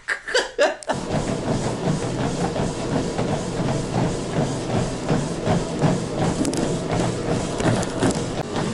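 Treadmill running under load, with a person's footfalls thudding on the belt about three times a second over the machine's steady whir, starting about a second in.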